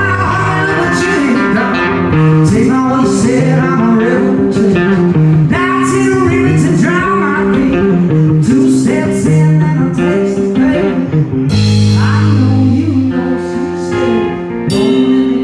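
A blues-rock band playing live, loud: guitar and singing over drums, with cymbals crashing near the end.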